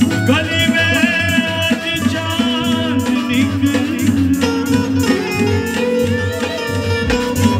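Hindu devotional aarti music: a melody whose pitch bends and wavers, over a steady beat of regular percussion strokes and a low drum pulse.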